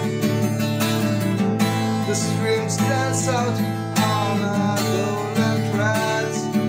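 Höfner steel-string acoustic guitar strummed in steady chords, the strings left ringing between strokes.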